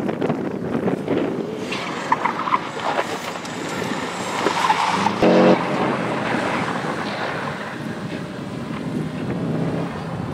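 Subaru Impreza's flat-four boxer engine revving hard as the car is driven fast through a tyre slalom, with short tyre squeals. A brief sharp crack about halfway through.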